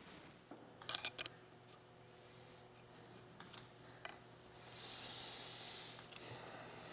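Faint clicks and taps of small metal engine parts and hand tools being handled on an aluminium motorcycle crankcase, a quick cluster about a second in, then a few single clicks.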